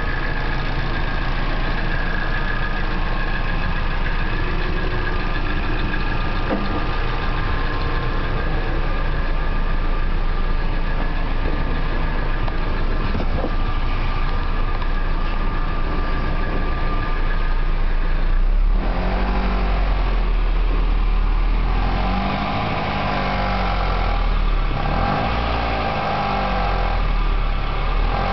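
Nissan KA24DE 2.4-litre inline-four engine idling, with a tick the owner takes for a sticky valve lifter. The sound changes abruptly about two-thirds of the way through.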